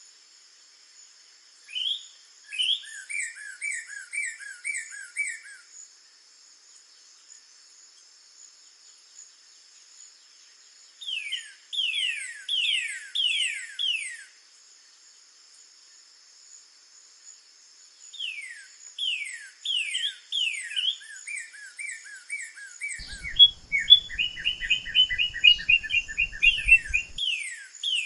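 Northern cardinal singing three phrases, each of loud down-slurred whistles that break into a quick run of short repeated notes, over a steady high background hum.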